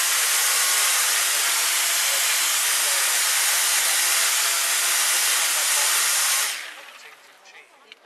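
Electric chainsaw cutting into a block of ice: a loud, steady hiss of chain and flying ice chips over the motor's hum. It stops about six and a half seconds in and dies away quickly.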